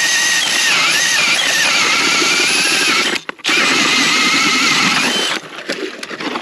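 DeWalt 20V cordless drill spinning a K-Drill ice auger through lake ice: a loud, steady motor whine whose pitch sags as the auger bites. It stops briefly about three seconds in, runs again at a lower pitch, and cuts off about a second before the end.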